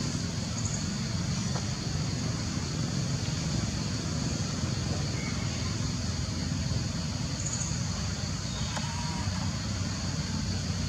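Steady outdoor background ambience: a constant low rumble under a continuous high-pitched insect drone, with no monkey calls standing out.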